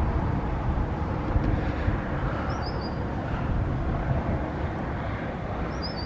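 Wind buffeting the microphone over a low outdoor rumble, with a small bird chirping briefly twice.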